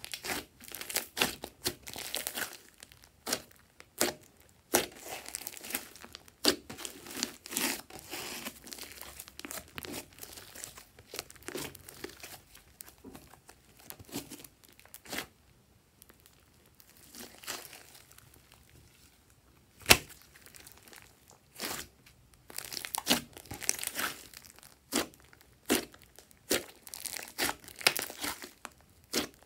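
Hands squishing, pressing and kneading a large mass of glossy slime, with irregular wet crackling and sharp clicks and pops as trapped air is squeezed out. There is a quieter lull in the middle and one loud pop about two-thirds of the way through.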